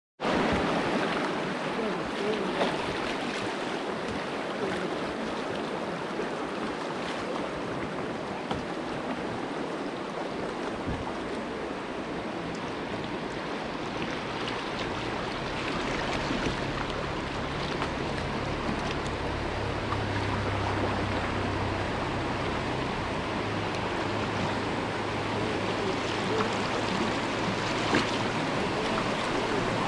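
Shallow river rapids rushing steadily around a kayak's hull, with a few small splashes. A low steady rumble joins about halfway through.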